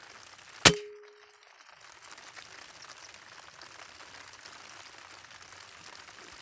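A single sharp shot from a scoped air rifle, followed by a brief metallic ring that fades within a second.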